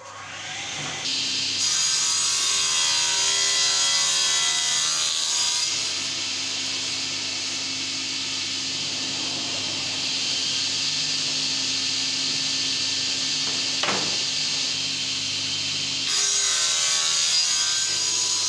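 Wood Styler sliding panel saw: the circular blade comes up to speed, then cuts through a laminated wood-grain panel fed on the sliding table. The cutting noise is loudest for a few seconds early on and again near the end, with the blade running more evenly in between and a single sharp click partway through.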